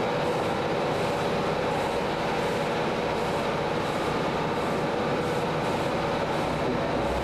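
Inside the passenger saloon of a British Rail Class 150 diesel multiple unit running along the line: the steady drone of its underfloor diesel engine mixed with wheel-on-rail rumble, holding an even level throughout.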